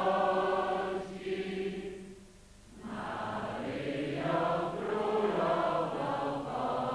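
Church congregation singing a hymn together, many voices holding long sung notes. One line ends about a second in, there is a short pause, and the next line starts about three seconds in.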